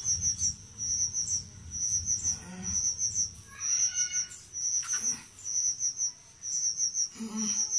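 Crickets chirping: short, high chirps repeating in an even rhythm, the usual night-time ambience.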